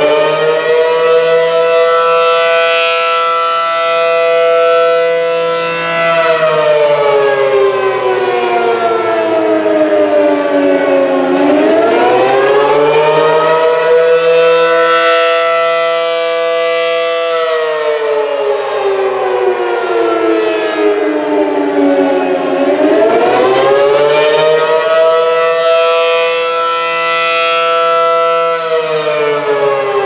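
ACA Allertor 125 rotating electromechanical warning siren sounding the wailing Attack signal. Its pitch climbs quickly, holds steady for about five seconds, then winds slowly down before climbing again, repeating about every 11 seconds. The loudness swells and dips as the horns turn toward and away.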